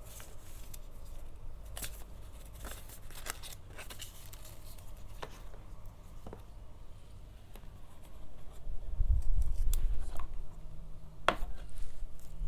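Packaging being handled and cut open: scattered sharp clicks and snips, like scissors cutting tape or plastic wrap, with a louder low rumble of handling bumps about nine seconds in.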